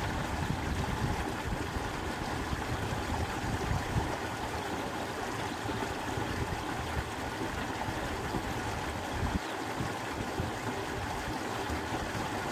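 Wind blowing on an outdoor microphone: a steady rushing noise with irregular low buffeting.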